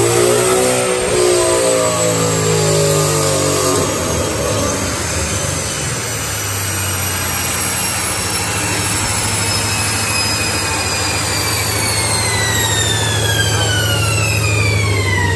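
Ford Mustang convertible on a chassis dyno at the end of a full-throttle pull: the engine's revs peak and fall away in the first few seconds. A high whine then drops steadily in pitch, faster toward the end, over a steady low drone as the car and dyno rollers coast down.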